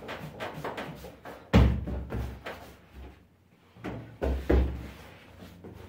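Knocks and dull thuds from dough pieces and trays being handled on a bakery work table: the loudest thud about one and a half seconds in, two more close together a little past four seconds, with lighter clicks between.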